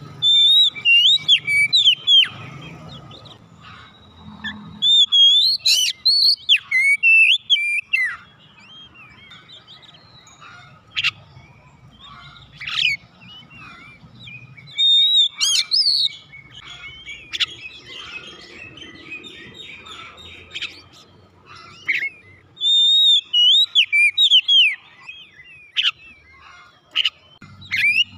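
Oriental magpie-robin singing: bursts of varied, rapidly gliding whistled phrases, each lasting one to three seconds, broken by quieter pauses of a few seconds.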